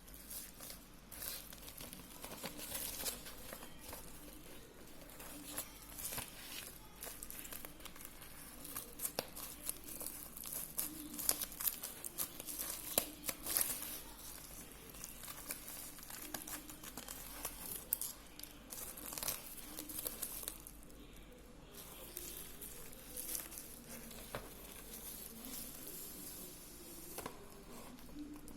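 Packaging being opened and handled by hand: plastic and paper crinkling and tearing, with scattered small clicks and taps.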